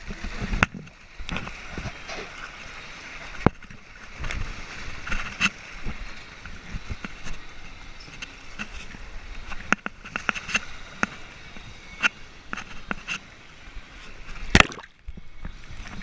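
Water rushing and sloshing down a water slide, with many short knocks and bumps and one sharp bang near the end.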